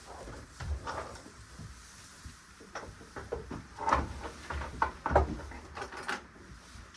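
A string of irregular knocks and clatters, the loudest about four and five seconds in.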